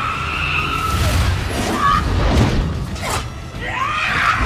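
Action-film soundtrack: short yells and shouts over a steady low rumble, with a couple of thuds about two and three seconds in.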